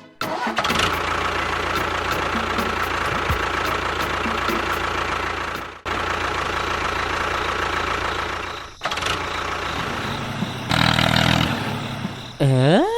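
A small motor running steadily with a high whine, breaking off briefly twice and resuming; near the end a short swooping rise and fall in pitch.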